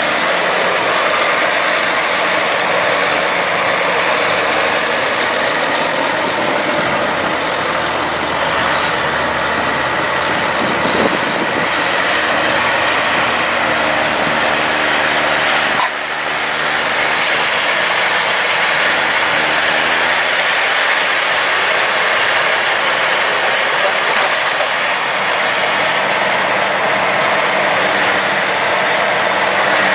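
Diesel engines of big John Deere four-wheel-drive tractors with dual wheels running hard under load in deep mud, a steady loud drone whose pitch wavers up and down in the second half, with a brief drop in level about halfway through.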